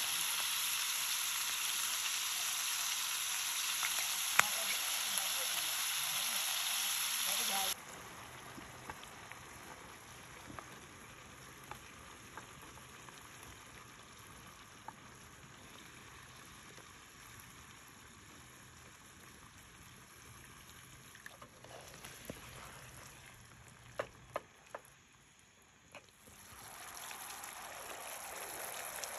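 Meatballs in tomato sauce sizzling in a frying pan on a portable gas stove, a steady hiss. About eight seconds in the sizzle drops off suddenly to a quieter stretch with a few sharp clicks, and it rises again near the end.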